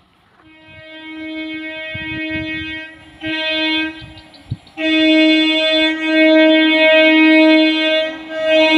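EMU train's horn sounding at one steady pitch: a long blast, a short one, then a long blast that is held on.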